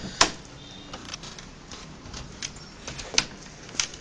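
A handful of sharp plastic clicks and knocks, the loudest just after the start, as a small screwdriver pries the glued-in keyboard of an HP 540 laptop up out of its case.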